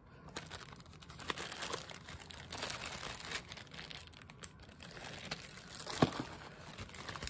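Plastic zip-top bags crinkling and rustling as a hand rummages through them, with irregular crackles throughout and one sharp click about six seconds in.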